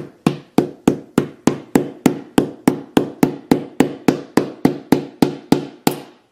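Steel knife tip tapping repeatedly on the glass back of a Samsung Galaxy S8 Plus, about three sharp, ringing taps a second, until the back glass cracks with the last taps near the end.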